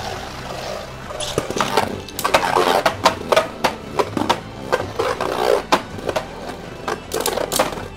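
Two Beyblade spinning tops, a custom 3D-printed one and Lucifer The End, spinning and colliding: a rough scraping whir broken by many sharp clacks as they strike each other.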